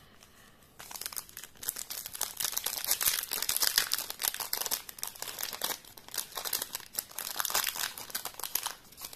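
Foil wrapper of a Yu-Gi-Oh booster pack crinkling and crackling in the hands as it is worked open, beginning about a second in and going on almost without a break.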